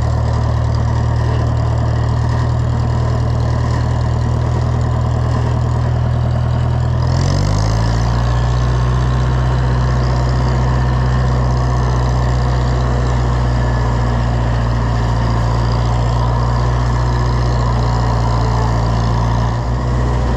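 Oliver 1250 (Fiat 415) tractor engine running steadily while the tractor is driven at low speed in its lowest gears. About a third of the way in the engine note steps up in pitch as it speeds up, then holds steady.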